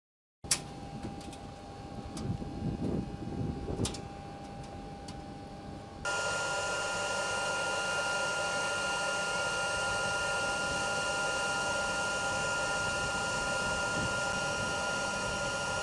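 Aircraft electrical and avionics power coming on: a steady electrical hum with several fixed high whining tones starts suddenly about six seconds in, after a few faint clicks.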